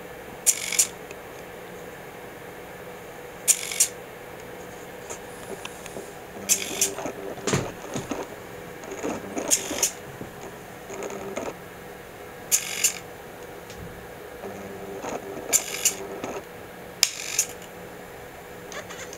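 Arduino-controlled hobby servo pressing the shutter button of an Olympus Stylus Tough compact camera about every three seconds, each press a sharp click. Short mechanical whirring comes in between some of the presses, over a faint steady hum.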